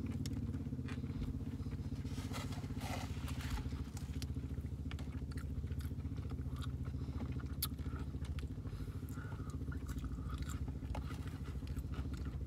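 Car engine idling, a steady low hum heard from inside the cabin, with close chewing and small clicks of someone eating a burger.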